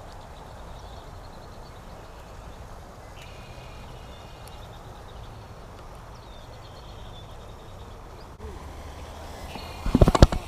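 Steady low outdoor rumble with a few faint bird calls. Near the end comes a short burst of loud sharp knocks.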